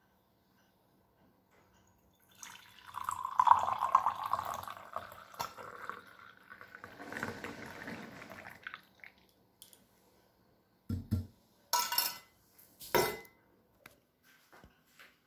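Tea poured through a metal strainer into a terracotta clay cup: a splashing, trickling pour for several seconds. It is followed by three or four sharp knocks near the end.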